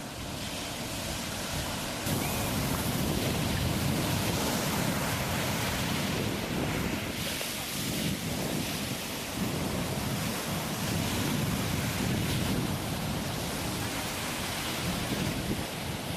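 Ocean surf: a steady wash of waves that swells and eases, getting louder about two seconds in.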